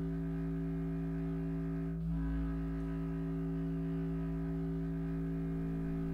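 A steady low drone of several held tones, like a hum, with a slight swell about two seconds in.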